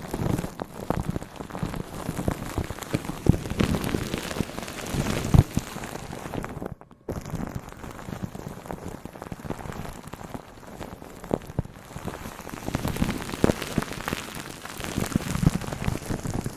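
Dense, irregular crackling and tapping close to the microphone, with a brief cut to silence about seven seconds in.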